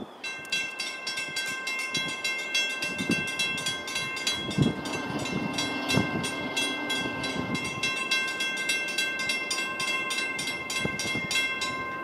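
Railroad grade-crossing bell ringing with rapid, even strokes and a steady ring between them; it starts right at the beginning and stops near the end.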